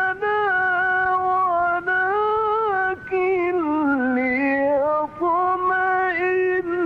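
A male Quran reciter chanting in long, ornamented melodic phrases, holding notes that bend up and down, with brief pauses for breath.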